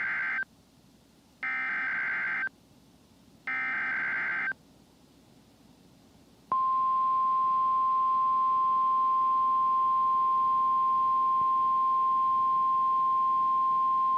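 NOAA Weather Radio emergency alert signal for a required weekly test. The end of one buzzy SAME digital header burst is followed by two more, about two seconds apart. About six seconds in, the steady 1050 Hz warning alarm tone begins and holds.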